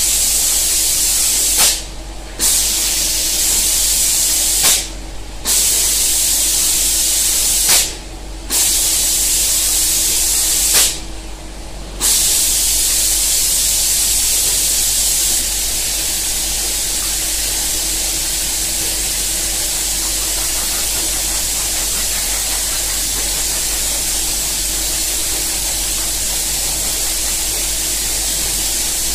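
Spray guns of an automatic painting machine hissing as they spray, cutting off briefly four times in the first twelve seconds and then spraying without a break. A faint steady machine hum runs underneath.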